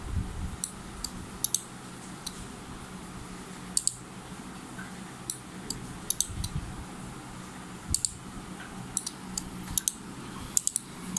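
Relay modules on an Arduino-driven relay board clicking as they switch, triggered by a photoelectric sensor: about fifteen sharp clicks at irregular intervals, some in quick pairs, over a low steady hum.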